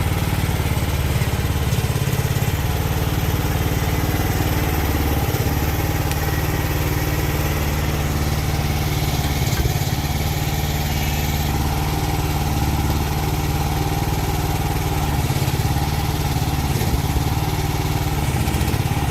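Mini excavator engine running steadily at an even speed.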